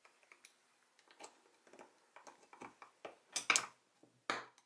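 Small clicks and light taps of Hope Tech 3 Duo brake-lever parts, the aluminium lever blades, pivot and master cylinder body, being handled and fitted together. Two louder, longer handling noises come a little over three seconds in and near the end.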